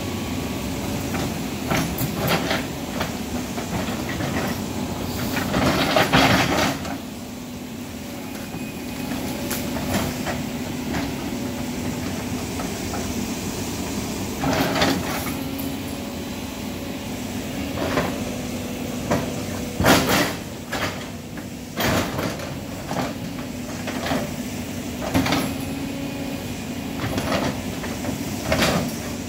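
CAT 320D L excavator's diesel engine running steadily under load as the bucket digs into landslide soil and debris, with repeated short knocks and scrapes of the bucket against dirt and wood and a longer grinding scrape about six seconds in.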